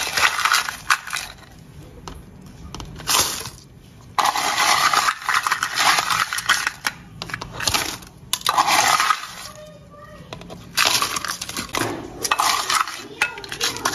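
Ice being scooped from a glass bowl with a plastic scoop and tipped into plastic cups: repeated bursts of clattering, crunching ice with short pauses between scoops.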